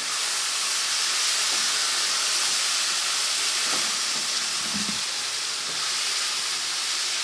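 Diced beef sizzling steadily as it sautés in hot oil with onion and tomato in a frying pan.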